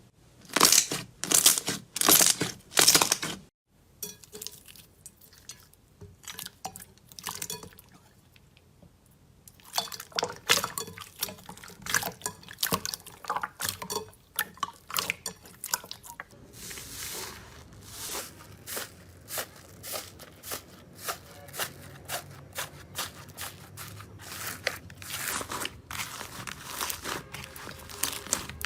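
Slime being squeezed and pressed by hand, making sticky crackles, clicks and small pops. It starts with four loud crunchy squeezes, goes quiet with only scattered small clicks for a few seconds, then turns to dense, steady crackling.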